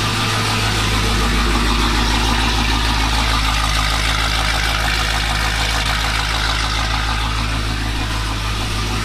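Dodge Challenger Hellcat's freshly built supercharged HEMI V8 idling steadily during its first run.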